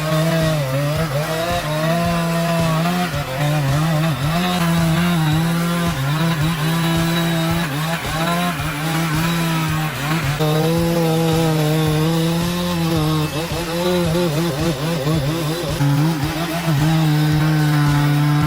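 Chainsaw running under load as it cuts through a tree trunk. The engine note holds steady and dips briefly now and then as the chain bites, and it cuts off abruptly at the end.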